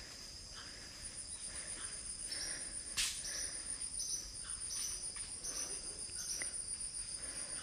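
Rainforest insects trilling steadily at a high pitch, with short chirps repeating about once a second. A single sharp click about three seconds in.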